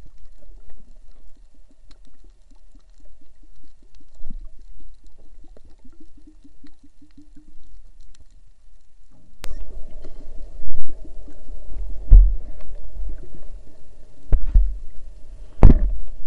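Underwater sound picked up by a camera in a waterproof housing: a low rumble with a run of quick, evenly spaced clicks. After a sharp click about nine seconds in comes a noisier stretch with several heavy knocks.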